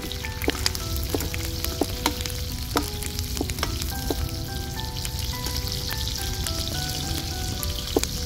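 Onions and bell peppers sizzling in a large steel pan over a wood fire. A metal spatula clinks and scrapes against the pan every second or so as they are stirred. A quiet background tune of short held notes plays underneath.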